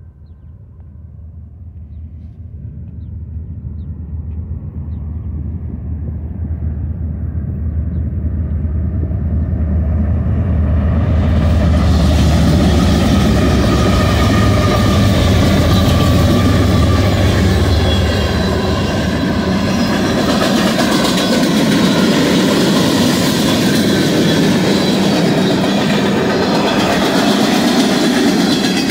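Freight train led by five diesel locomotives (GE ES44DC, ET44C4s, EMD SD70ACe, ES44C4) approaching with a low engine rumble that grows steadily louder. About twelve seconds in the locomotives pass close by, and the freight cars follow with a loud, steady rolling rush of wheels on rail.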